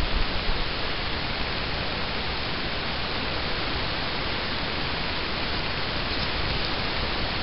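Steady, even hiss with no distinct events. A louder low rumble fades out in the first second.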